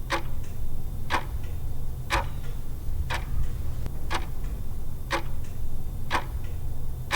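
Clock ticking, a sharp tick about once a second, over a steady low hum: a countdown timer sound effect.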